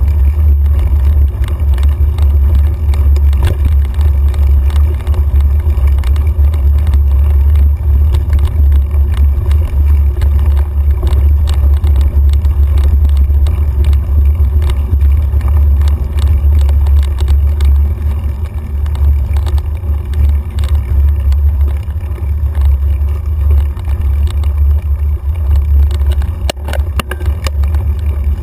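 Steady low rumble of wind and trail vibration on the microphone of a camera mounted on a mountain bike's handlebars as it rides a dirt trail, with scattered clicks and rattles from the bike over bumps, several of them close together near the end.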